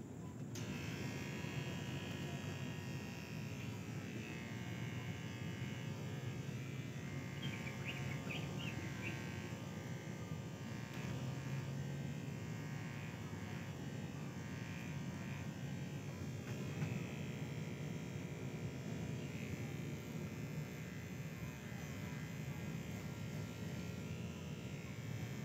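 Electric hair clippers running steadily.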